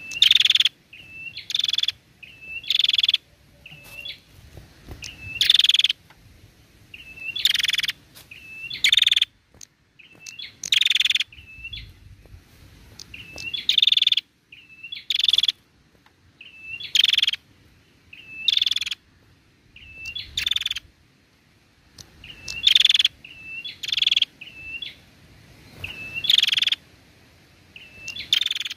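Female prenjak (tailorbird) calling over and over: short high chirps, each run ending in a loud harsh buzzing note, repeating every second or two.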